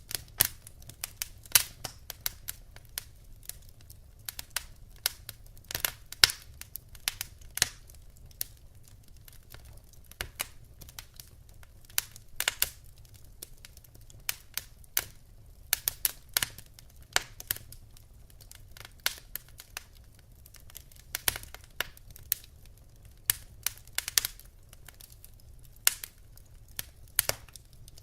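Wood fire in a fireplace crackling, with irregular sharp snaps and pops from the burning logs, some much louder than others.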